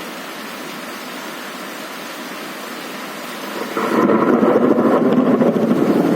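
Steady heavy rain, then a loud rolling rumble of thunder swells up about four seconds in and keeps going.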